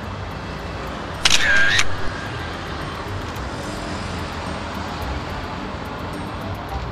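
DSLR camera shutter firing for a slow exposure: a loud click about a second in and a closing click under a second later. Steady traffic rumble from the road runs underneath.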